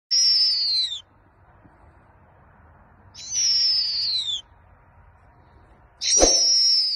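Snowy owl calling three times, about three seconds apart: each call is a high, thin cry about a second long that falls in pitch. A low thump comes at the start of the third call.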